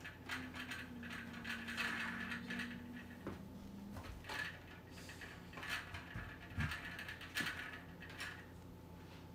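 Hard plastic Marbleworks marble-run pieces clicking and rattling as they are handled and fitted together, in irregular clusters of small clicks.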